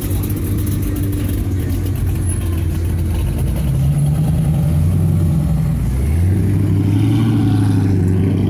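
A car engine running close by, its deep note rising in pitch about four seconds in and stepping up again about six seconds in.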